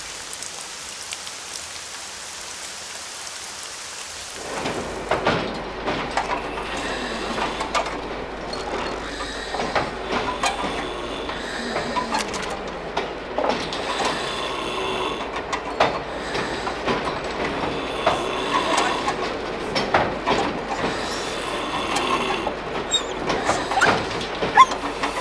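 A steady hiss of rain, then, about four seconds in, the rattling and clicking of a moving train carriage's wheels on the rails, with short high squeals here and there.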